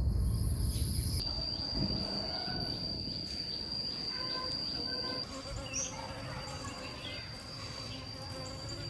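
Insects droning in one steady high-pitched tone, with a low rumble in the first second or so.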